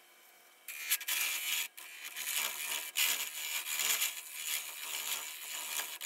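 A wood lathe running with a turning tool cutting the spinning resin blank: rough, uneven scraping that starts about a second in, with short breaks, over the lathe's steady hum.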